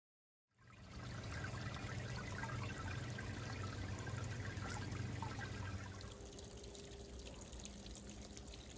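Small garden fountain running on a pond pump: water spraying up and falling back onto the stones in a steady splash. It starts about half a second in and gets softer about six seconds in.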